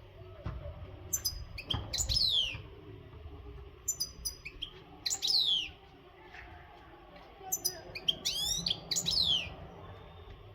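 European goldfinch singing: three bursts of rapid twittering with quick falling whistled notes, a few seconds apart. This is the strong song of a bird in breeding condition.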